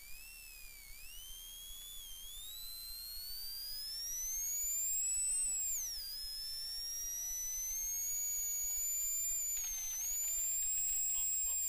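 Electrical whine from a loose audio cable in place of the real car sound: a thin whistling tone whose pitch climbs with the rally car's engine revs and drops sharply at each upshift, about 1, 2, 6 and 10 seconds in.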